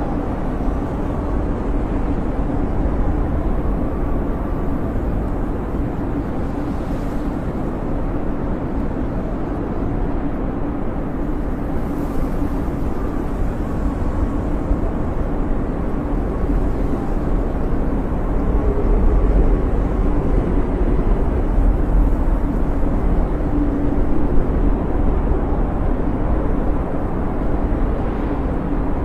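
Snowstorm wind howling steadily: a deep, rushing rumble with faint whistling tones in it, swelling a little past the middle.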